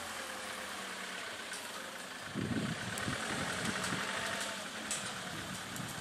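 Safari vehicle's engine idling steadily, with a brief louder low rumble about two seconds in and a few faint sharp clicks now and then.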